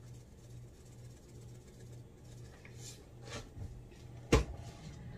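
A salt canister is set down on a hard surface with one sharp knock about four seconds in, after some soft rustling, over a faint low hum.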